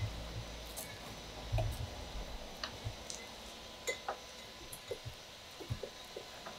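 Glass bottles and glasses on a rolling wooden pallet cart clinking and ticking as it is pushed over paving, in scattered light knocks, with a low rumble during the first two seconds.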